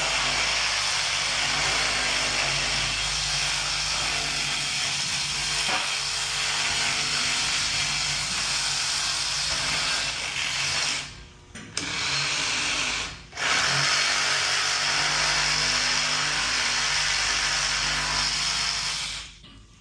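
Reciprocating saw (Sawzall) running and cutting through a pipe, stopping briefly twice about two-thirds of the way through before running on again, then cutting off near the end.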